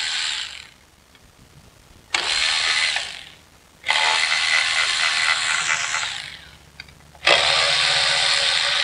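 Milwaukee M12 cordless ratchet spinning bolts out of a water pump housing, running in four bursts of one to two seconds each. The motor cuts in and out abruptly between them.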